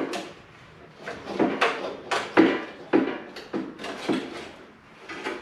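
Rear fender of a 1980 Harley-Davidson FLT knocking and scraping against the frame as it is worked loose: a run of about ten irregular clunks, each with a short ring.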